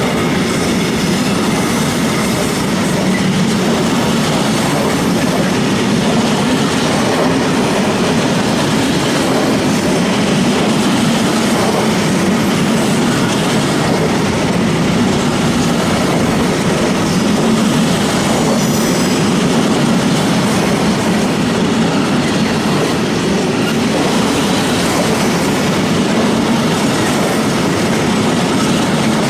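Freight train of low-sided open wagons passing close by at speed, its wheels running on the rails in a loud, steady roll.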